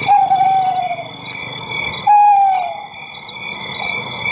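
Novelty car horn module playing its bird-sound tone: a looped birdsong of quick chirps, about three a second, over steady high whistles, with a lower falling whistle twice.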